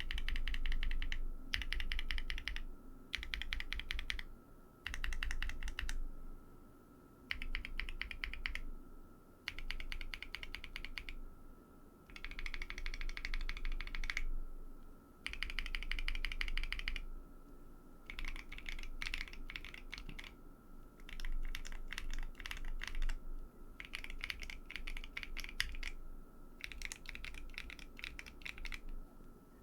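Typing on a Bakeneko 60 keyboard with lubed Tecsee Coral tactile switches on an FR4 plate and cherry-profile dye-sublimated PBT keycaps: bursts of fast key clicks separated by short pauses.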